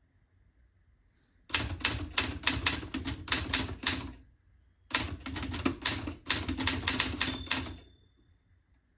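Typing on a 1958 Adler Universal manual typewriter: two quick runs of sharp key and typebar strikes separated by a short pause, with a brief ringing tone during the second run. The machine has a light, bouncy key action.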